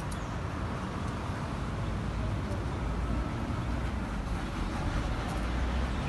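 Steady outdoor background noise: a low rumble under an even hiss, the rumble growing a little louder in the second half.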